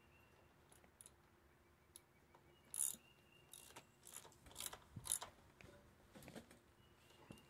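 Faint clicking of a socket ratchet and metal tool clinks, in a few short runs, as the loose bolts holding a riding mower's engine to its frame are tightened. These loose bolts are the cause of the engine knock.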